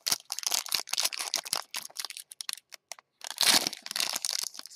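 Foil wrapper of a trading-card pack being torn open and crinkled by hand: a quick run of sharp crackles, a brief pause about three seconds in, then a louder burst of crinkling.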